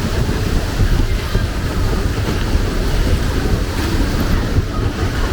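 Steady low rumble of a moving train, with wind buffeting the microphone.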